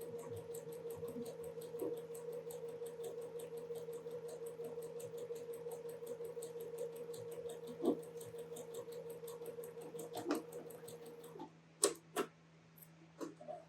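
Domestic sewing machine stitching at a steady speed, its motor humming under fast, even needle ticking. It stops about eleven seconds in, followed by a few sharp clicks.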